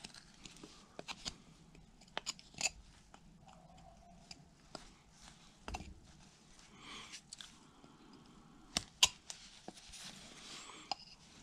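Carving knife cutting into a basswood block by hand: a string of small, crisp cuts and snaps at irregular moments as chips come away, the sharpest about nine seconds in.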